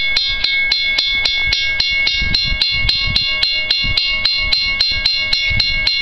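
Railway grade-crossing warning bell ringing in a steady, fast rhythm of about four strikes a second, with a ringing metallic tone on each strike: the crossing signals are active for an approaching train. An irregular low rumble lies underneath.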